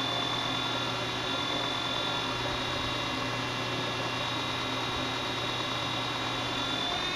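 A 2x72 belt grinder running steadily with a constant motor hum and belt whine, grinding the rough plasma-cut edge of a steel plate against the 10-inch contact wheel.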